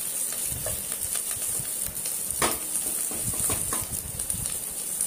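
Chopped onions, green chillies and curry leaves sizzling in oil in a nonstick pan, with a wooden spatula scraping and tapping on the pan as it stirs them, a cluster of taps about halfway through.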